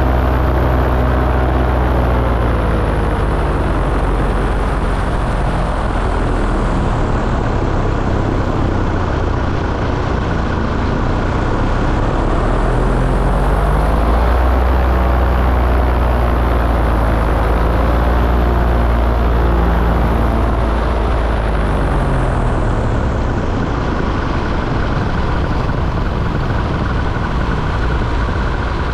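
Small aircraft engine running under changing throttle over a heavy low rumble. Its note falls in the first few seconds, climbs again about twelve seconds in, and drops once more a little after twenty seconds.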